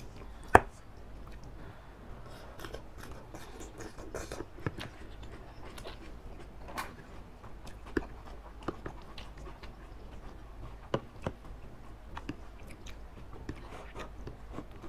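Two people eating instant noodles in soup with baby octopus: noodle slurping and wet chewing, with scattered clicks of metal forks against the dish. One click about half a second in is much sharper than the rest.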